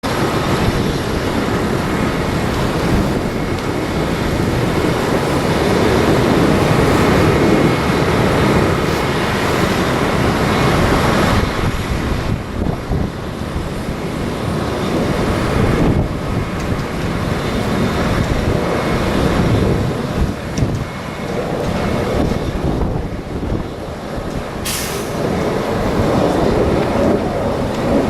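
Strong gusty wind buffeting the microphone: loud low rumbling noise that swells and eases with the gusts, with a brief high hiss near the end.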